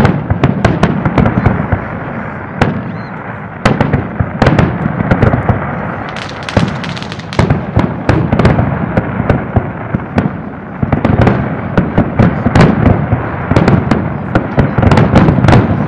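Aerial firework shells bursting in quick succession: a dense barrage of sharp bangs and crackle over a constant low rumble, beginning abruptly.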